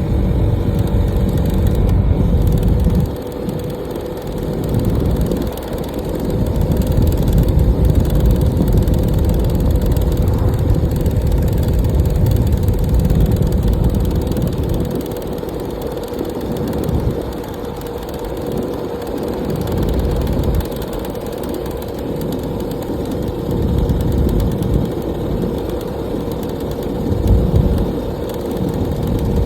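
Suzuki DR-Z400S single-cylinder four-stroke engine running steadily, with a low rumble on the microphone that rises and falls irregularly.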